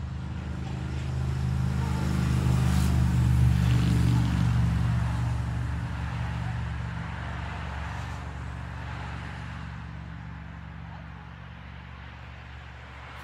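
A motor's low, steady hum swells to its loudest about three seconds in, then slowly fades away.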